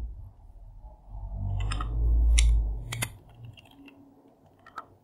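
A few computer keyboard keystrokes clicking at irregular intervals, over a low rumble that swells between about one and three seconds in.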